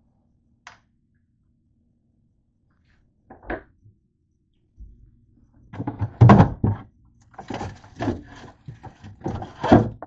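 Refrigerator opened and rummaged through: a run of knocks and rustling as things inside are moved about and a red mesh produce bag is pulled out, loudest just after the door opens and again near the end.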